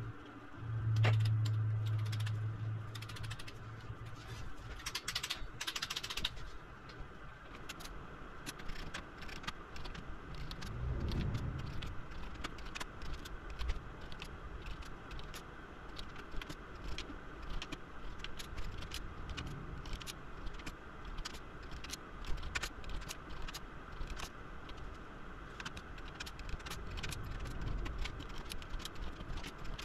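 Hand tools clicking and clinking on the metal hardware of a hybrid battery pack: a fast, uneven run of small metallic clicks, with a low hum in the first few seconds.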